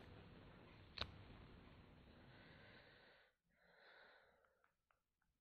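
Near silence: faint room hiss, with one sharp click about a second in and a few faint ticks later on.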